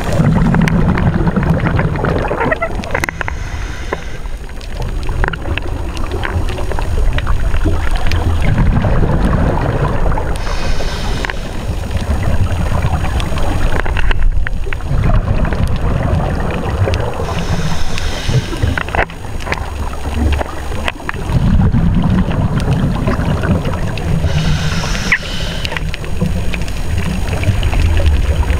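Scuba regulator breathing underwater, heard through the camera housing: a short hiss on each inhale, four times, each followed by several seconds of loud low bubbling as the exhaled air rushes out.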